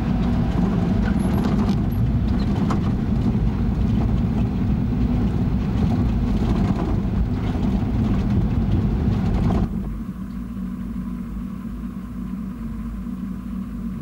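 Safari truck's engine running while it drives over a rough bush track, heard from inside the cab, with many small knocks and rattles. About ten seconds in the sound drops suddenly to a quieter, steady engine hum.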